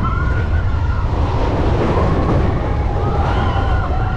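Big Thunder Mountain Railroad mine-train coaster running along its track: a steady heavy rumble with wind on the microphone. Over it come drawn-out high squeals that rise, hold about a second and fall away, near the start and again about three seconds in.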